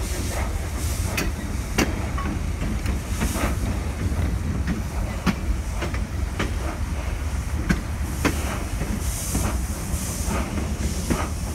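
Train running on rails: a steady low rumble with many irregular sharp clicks and knocks from the wheels on the track, and several spells of steam hissing from a steam locomotive.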